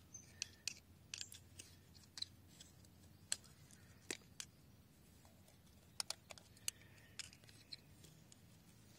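Faint, irregular metal clicks and scrapes of a hook tool picking at the selector shaft O-ring in the bore of a 5HP24 gearbox housing.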